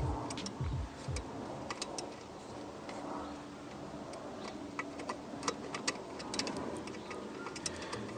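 Irregular light clicks and taps of small hand tools and parts being handled during dashboard wiring work, over a faint steady hum.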